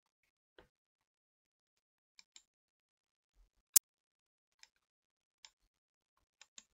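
Computer mouse clicking: scattered single clicks and quick double clicks, one far louder and sharper than the rest about four seconds in.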